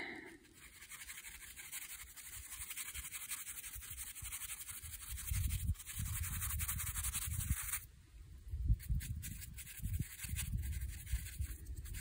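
Round watercolor brush scratching and rubbing across cold-press watercolor paper in repeated sideways strokes, with irregular low rumbles underneath.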